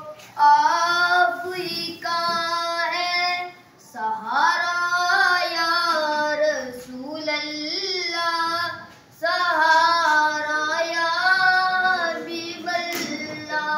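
A boy singing solo and unaccompanied, in long drawn-out phrases with a wavering pitch, pausing briefly for breath about four, seven and nine seconds in.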